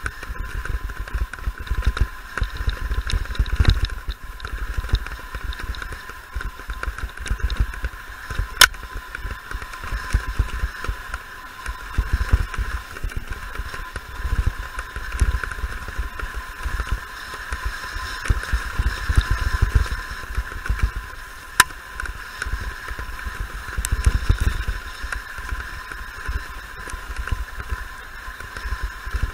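Mountain bike riding fast down a dirt forest trail, heard from a camera on the bike or rider: a continuous, uneven low rumble of wind buffeting and the bike jolting over the ground, with a steady high buzz throughout and a couple of sharp clicks.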